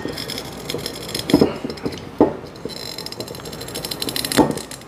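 Corkscrew being twisted into the cork of a glass wine bottle: a run of fine creaking clicks of metal working into cork, with three sharper knocks.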